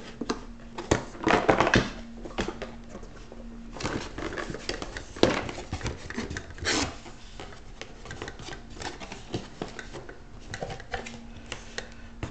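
A small cardboard box and its packaging being opened and handled by hand: scattered rustles, scrapes and light clicks, with louder rustling bursts about one and a half, five and seven seconds in.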